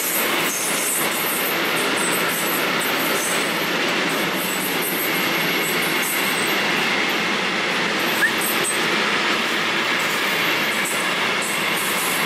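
Freight train of bogie hopper wagons passing at steady speed: a continuous rumble and rattle of steel wheels on the rails, with faint wheel squeal and a short squeak about eight seconds in.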